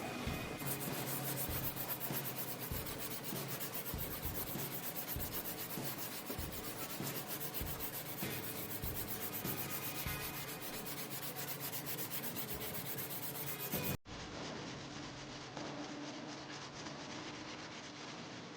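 Sanding cured body filler on a car's steel quarter panel: a steady, continuous abrasive rasp of sandpaper working the hardened filler smooth.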